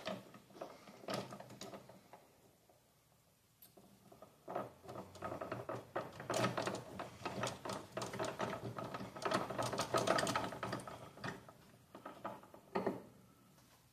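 The open gear train of a Borg-Warner T5 five-speed manual transmission, its shaft turned by hand: a run of quick metallic clicking and rattling, thickest in the middle, with one sharper click near the end.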